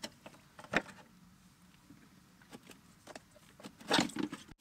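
Plastic clicks and knocks from a robotic pool cleaner's lid and filter canister being opened and handled. There is one sharp knock about a second in, a few light clicks, and a quick cluster of knocks near the end as the canister is gripped.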